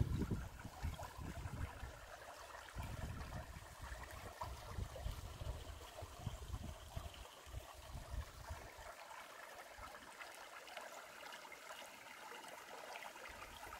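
Shallow creek running over rocks and cobbles, a steady babble and trickle of water. Irregular low rumbling sits under it in the first part and dies away about nine seconds in.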